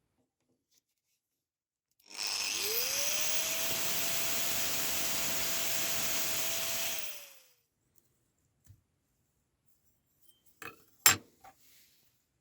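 A small electric power tool spins up, cuts for about five seconds and winds down as it stops, probably while removing the knife's handle pin. A few sharp metal knocks follow near the end.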